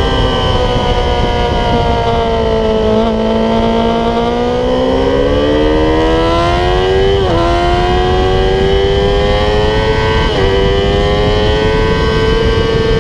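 Yamaha YZF-R6 inline-four sportbike engine with an aftermarket Growler exhaust, heard onboard at speed over wind rush. It slows with a downshift about three seconds in, then accelerates hard, the revs climbing and dropping back at upshifts about 7 and 10 seconds in.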